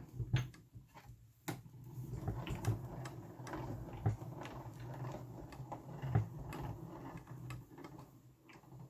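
Manual die-cutting and embossing machine being hand-cranked, its rollers pulling a stack of steel plates and an embossing folder through with a steady low rumble. A few sharp pops come through, from the embossing folder being fed in straight rather than tilted.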